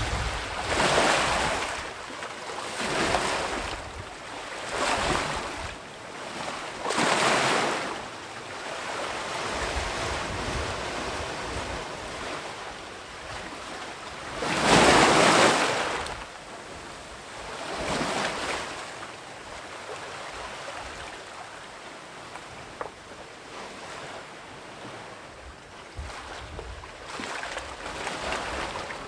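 Sea waves breaking on the shore: four surges about two seconds apart, the loudest crash about halfway through, then a smaller one, with a softer wash of surf in between.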